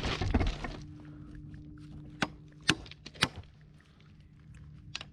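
A brief scraping rustle, then three sharp knocks about half a second apart: a hammer striking stakes or boards while concrete forms are set.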